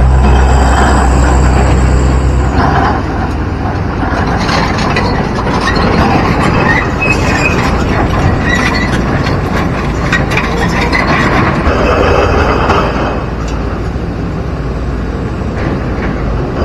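Diesel engine of a Sumitomo hydraulic excavator running, with scattered knocks and clanks of rock as it works among river boulders, over the steady rush of a fast, muddy river. The deep engine drone is strong for the first two or three seconds, then drops back.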